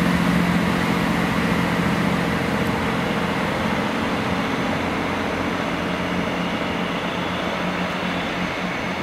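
A Class 158 diesel multiple unit pulling away, its underfloor diesel engines droning steadily over the running noise of the train, fading slowly as it moves off.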